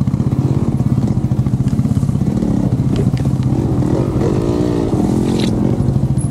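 Motorcycle engine running at low trail speed, a steady pulsing note whose pitch swells up and falls back once about four to five seconds in. A few sharp knocks and clatter sound around three seconds in and near the end.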